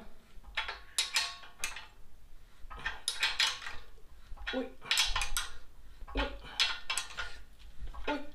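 Socket ratchet working a nut on a through-bolt, its pawl clicking in short bursts, one burst every second or two, as the bolt is drawn tight to pull the shrinker-stretcher's top and bottom jaws into line.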